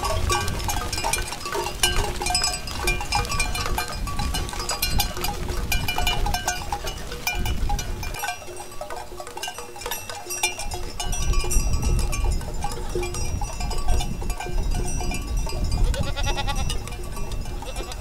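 A mixed flock of sheep and goats bleating as it moves, with many short knocks and tinkling notes throughout.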